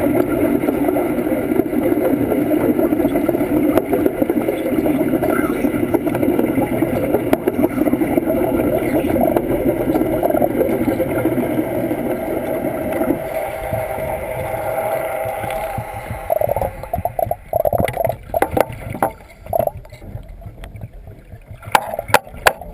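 Underwater arc welding: a steady, dense bubbling crackle that thins out about thirteen seconds in. It breaks into irregular pops and dies down, and a run of sharp clicks comes near the end.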